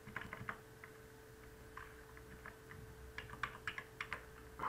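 Computer keyboard keys clicking in short, irregular bursts of keystrokes, with a faint steady hum underneath.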